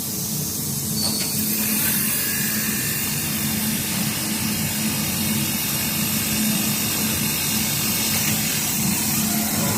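Computerised mattress quilting machine running, a steady mechanical hum that grows a little louder about a second in.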